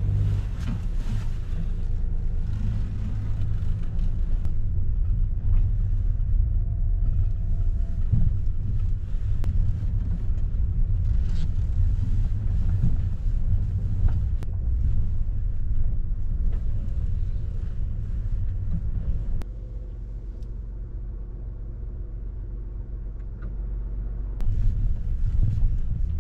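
A car driving, its engine and road noise a steady low rumble that eases for about five seconds in the last third before rising again.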